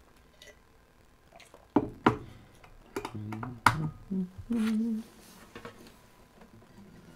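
Knocks and clicks of an acoustic guitar being handled and settled into playing position, with a few short low pitched sounds in the middle.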